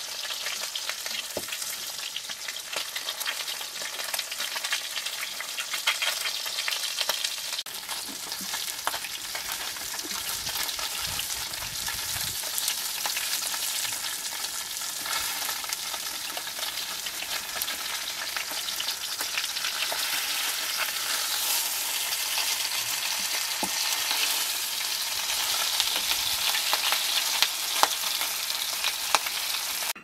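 Food frying in hot oil in a pan: a steady sizzle dense with small crackles and pops.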